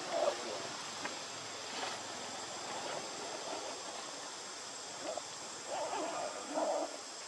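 Steady outdoor background hiss with a thin, constant high insect drone, and a few short faint animal calls about five to seven seconds in.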